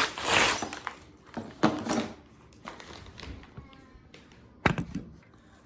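Handling noises of ordered packages being picked up and unpacked: a short rustle at the start, a few light knocks, and a sharp click near the end.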